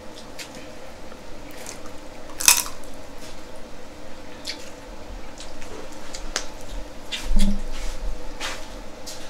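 Close-up wet eating sounds from a buttery seafood boil: squishing and scattered clicks of shells being pulled apart, with a sharp click about two and a half seconds in and a dull thump about seven seconds in.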